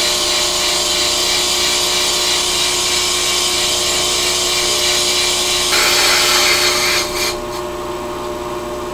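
Brake lathe running with its cutting bits shearing across a brake rotor on a fast cut: a steady motor hum under a bright metallic hiss. About six seconds in the hiss gets louder. A second later it stops suddenly as the cut finishes, leaving only the lathe's hum.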